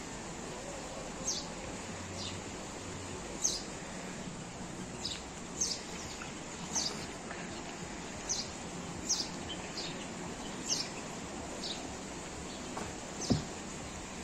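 A small songbird repeating short, high, downward-sliding chirps every second or so over a steady background hum, with a single sharp knock near the end.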